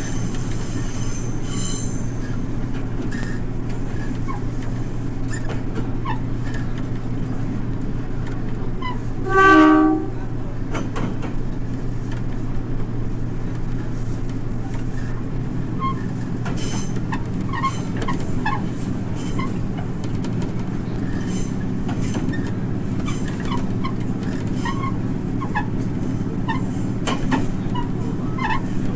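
Diesel railcar running along the track with a steady engine drone and scattered clicks from the wheels on the rails. High wheel squeal in the first couple of seconds. About nine seconds in, the horn sounds once, briefly.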